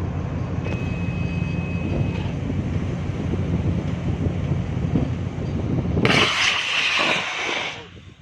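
Steady low drone of a ship's engine running under way. Wind noise from the microphone can be heard, with a loud rushing gust about six seconds in that lasts under two seconds and then drops away.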